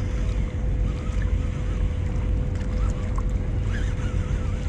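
Wind rumbling on the microphone over a steady, constant engine hum from boats on the water.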